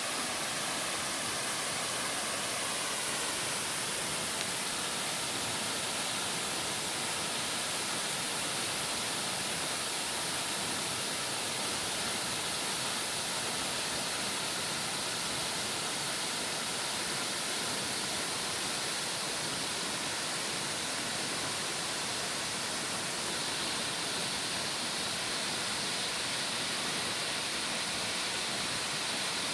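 Steady rush of water from a 60-metre free-falling waterfall, an even hiss without change.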